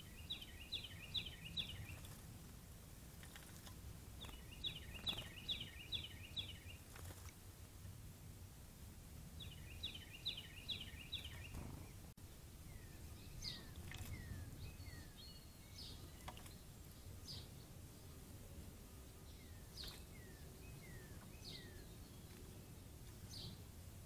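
Faint birdsong over a steady low background rumble: a songbird sings a short song of rapidly repeated two-part notes three times, a few seconds apart. About halfway through this gives way to scattered short chirps that slide downward.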